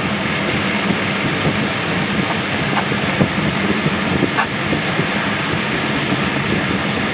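Steady rush of airflow around the canopy inside the cockpit of a Schempp-Hirth Duo Discus two-seat glider in flight, with a few faint ticks.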